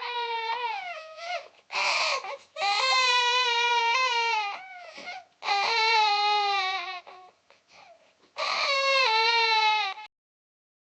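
A young child crying loudly: a series of long, high wails, each sliding slightly down in pitch, broken by short catches of breath, stopping about ten seconds in.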